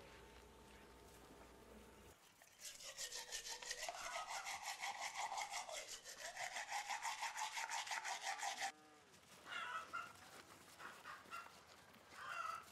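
Toothbrush scrubbing teeth in rapid, even back-and-forth strokes, close up, starting about two and a half seconds in and stopping abruptly near nine seconds.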